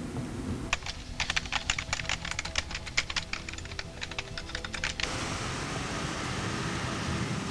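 Rapid typing on a computer keyboard, a quick run of key clicks lasting about four seconds. The clicks stop suddenly and a steady hiss takes over.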